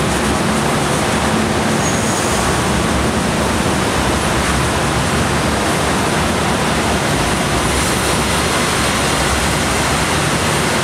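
Passenger coaches of the Bangunkarta train rolling past at close range as it enters the station: a steady rushing noise of wheels on rails.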